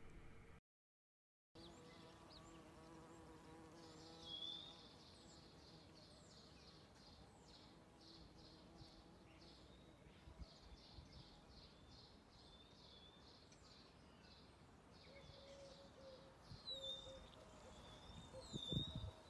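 Faint outdoor ambience: insects buzzing, a high chirping repeated about twice a second through the middle, and a few short bird chirps near the end.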